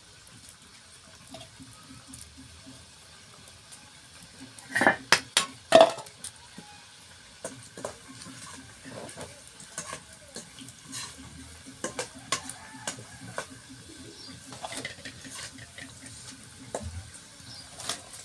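Patavadi pieces frying in hot oil in a kadhai, a faint steady sizzle, with a metal spoon clattering against the pan several times about five seconds in and lighter scrapes and taps after.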